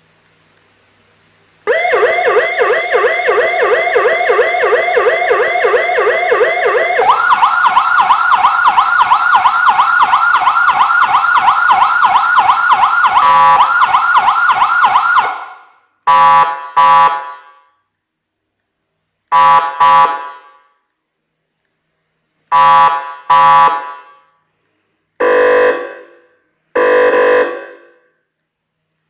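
Electronic vehicle siren (Yuanhao CJBWX-AS920-P5, 100 W) switching on about two seconds in with a rapid warbling tone. The tone jumps to a higher pitch about a third of the way through and stops about halfway. It then sounds short loud blasts, mostly in pairs, several seconds apart.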